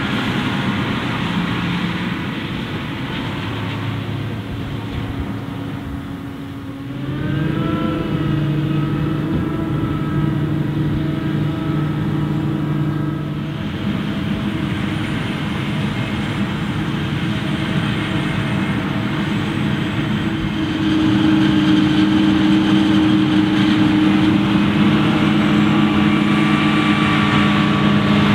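John Deere 8500i self-propelled forage harvester running under load while chopping maize, together with the tractor hauling the silage wagon alongside: a steady, loud engine drone. The engine note rises in pitch about seven seconds in and grows louder around twenty-one seconds.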